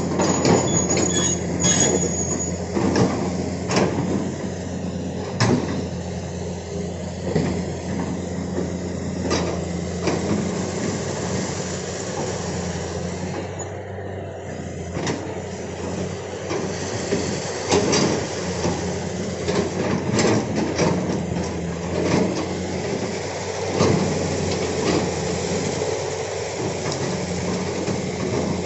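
Hitachi hydraulic excavator working: its diesel engine runs with a steady drone while frequent sharp metallic clanks and knocks come from the bucket and the loaded material.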